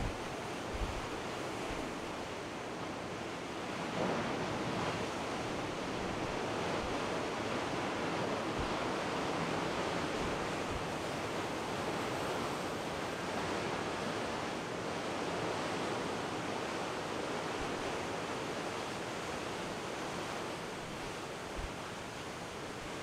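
Heavy storm surf of 20-foot seas breaking against a rocky shore: a steady wash of crashing waves that swells about four seconds in. Wind buffets the microphone now and then with short low thumps.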